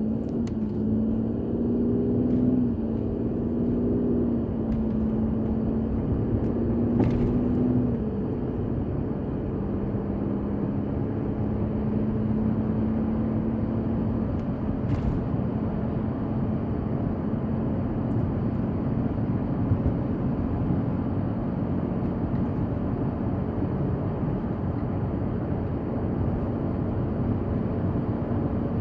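Audi A6 C6 running, a steady engine hum whose pitch shifts a few times in the first eight seconds, then holds steady.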